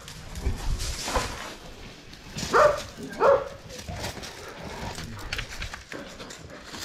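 Dog barking: two loud barks about two and a half and three and a quarter seconds in, with a fainter one about a second in.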